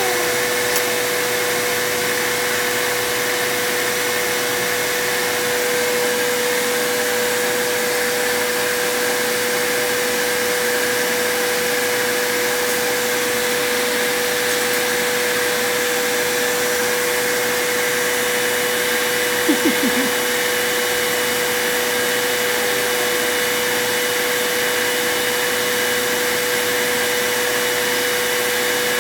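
Vacuum cleaner running steadily, an even rushing noise with a constant whine. A brief cluster of a few short, louder sounds comes about two-thirds of the way through.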